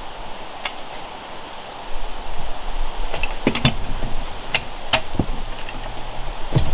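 Irregular sharp knocks and clicks of a hand tool striking sandy soil and roots, bunched together about three to four seconds in and then coming singly, over a steady low rushing noise.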